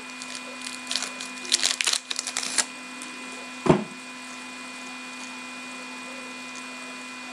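Foil wrapper of a hockey card pack crinkling and tearing as it is ripped open, in quick bursts over the first two seconds or so. Then only a steady electrical hum, broken once by a short low sound a little after the middle.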